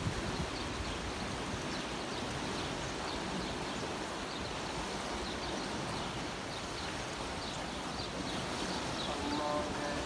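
Water rushing steadily along a concrete irrigation canal, with gusts of wind buffeting the microphone. Faint high chirps repeat throughout, and a steady pitched tone comes in about nine seconds in.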